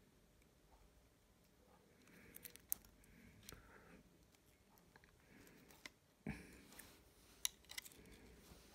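Near silence broken by scattered faint, sharp clicks and taps from small objects being handled: lithium-ion battery cells and a soldering iron picked up and moved.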